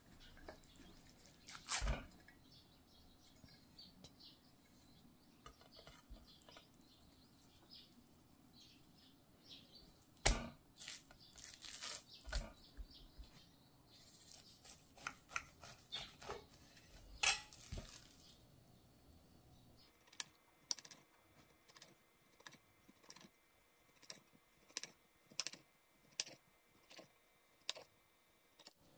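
A steamed chive and acorn-flour cake being turned out of a ceramic dish onto a glass cutting board, with a few sharp knocks of dish and knife on the glass. In the second half a kitchen knife slices the cake, its blade tapping the glass board about once a second.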